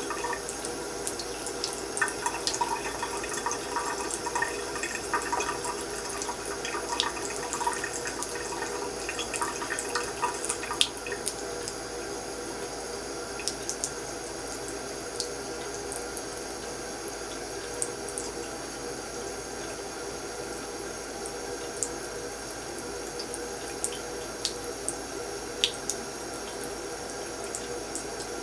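Thin stream of water from a bathroom faucet running steadily into the sink, as a cat drinks from the stream. Irregular small splashes and clicks sound over it, busier in the first ten seconds or so and only now and then after that.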